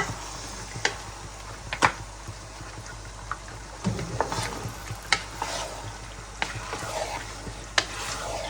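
Spoon stirring meat curry and fried rice together in a large cooking pot for akhni: a steady sizzle with about six sharp knocks and scrapes of the spoon against the pot.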